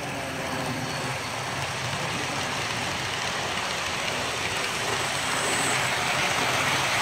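Model freight trains rolling past close by, a steady rumble and whir of wheels on the track with the Delaware & Hudson diesel locomotives running, getting louder near the end as more cars pass.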